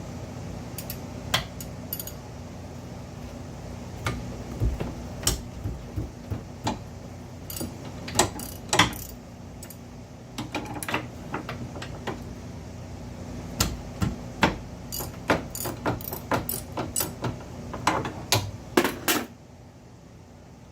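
Irregular metallic clicks and clinks of hand tools working on a car's rear disc brake assembly, over a steady low hum.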